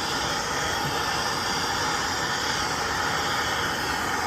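Soldering torch flame hissing steadily as it heats a pipe union while the solder is drawn into the joint.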